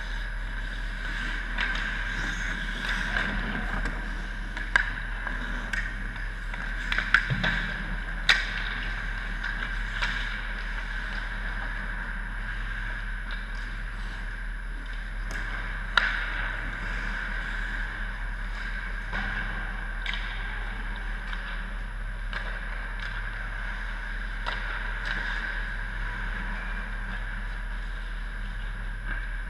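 Ice hockey rink sounds: several sharp cracks of a puck being struck by a stick or hitting the boards, the loudest about 7 and 16 seconds in, over a steady background hum.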